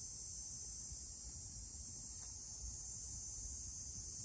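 Steady high-pitched insect chorus, with a faint low rumble beneath it.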